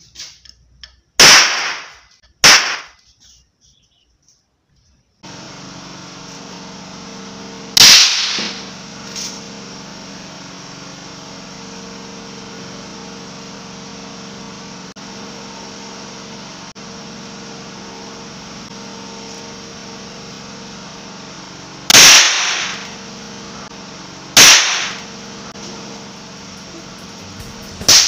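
Nitrogen triiodide touch powder detonating at a touch: six sharp, loud cracks, two close together at the start, one about eight seconds in, and three more in the last six seconds. From about five seconds in, a steady low hum lies underneath.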